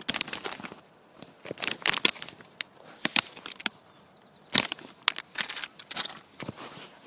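Handling noise from a phone camera being moved and set in place: irregular crackles, rubs and knocks on the microphone, coming in clusters with short pauses.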